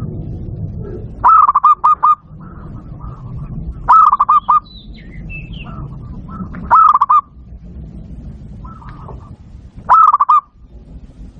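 Zebra dove (perkutut) song: four loud bursts of quick rolling coo notes, repeated about every three seconds.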